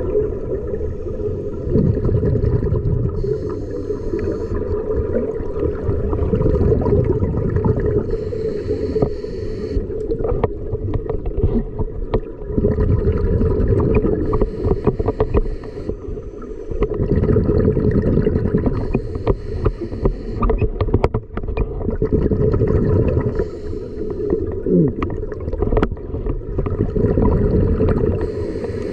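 Scuba breathing heard underwater through a regulator: a short hiss on each inhale about every five seconds, each followed by a low rumbling rush of exhaled bubbles. Scattered sharp clicks and knocks run through it.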